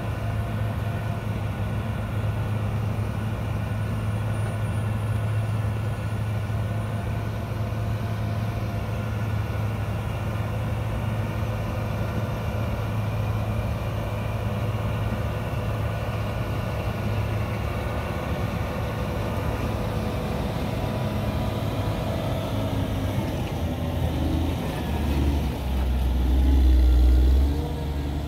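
Caterpillar motor grader's diesel engine running steadily under load as it blades dirt, with a steady low hum. About three quarters of the way through the engine note drops deeper and grows louder for a few seconds.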